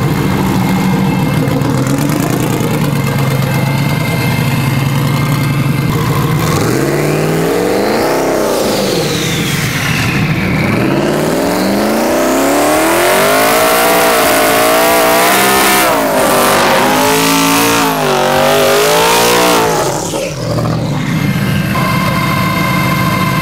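Drag-racing pickup truck engine idling, blipped up once, then held at high revs for several seconds with the pitch wavering and a loud hiss of spinning tyres in a burnout, before dropping back to idle near the end.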